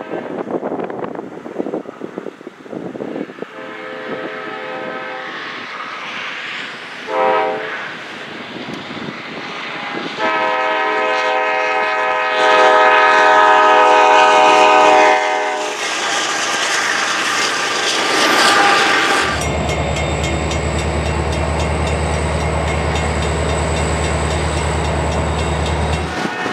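Diesel locomotive horn sounding several blasts as a train approaches a grade crossing, with a long blast about ten seconds in. From about two-thirds of the way through, a steady low diesel rumble takes over as the locomotive passes, cutting off just before the end.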